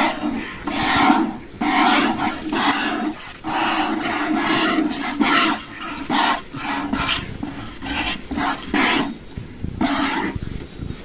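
Cow being milked by hand: milk squirting into a pail in short, quick strokes, about one or two a second, unevenly spaced.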